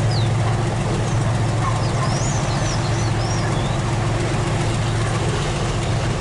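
Diesel locomotive engine idling with a steady low hum, while birds chirp with short rising and falling whistles during the first half.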